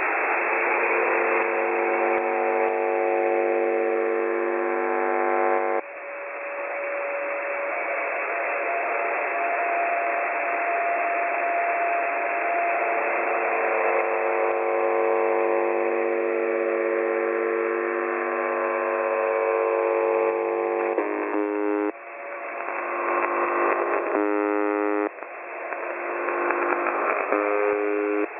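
Shortwave radio reception of the UVB-76 'Buzzer' frequency: static hiss under a cluster of steady tones that switch to new pitches abruptly a few times. Near the end the tones break into a fast pulsing pattern, part of the station's unusual signals rather than its normal buzz.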